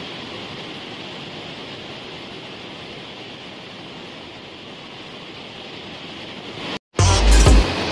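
Steady rushing of a fast rocky stream, an even hiss with no change in it. Near the end it cuts off, and loud background music with a heavy bass comes in.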